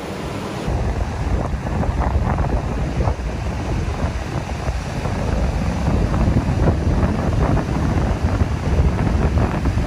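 Wind buffeting the microphone in a low, steady rumble, starting just under a second in, with ocean surf washing underneath.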